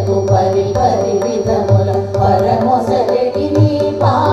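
Background music in Indian classical style: a melodic line over low, irregular drum strokes.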